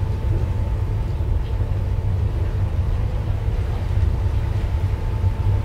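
Steady low rumble of the expedition ship MV Sea Venture's engines and machinery, heard from on deck as it cruises slowly, with a faint steady hum above it.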